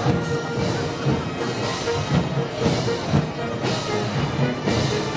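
Festival band music with drum strikes, of the kind played at Moros y Cristianos parades.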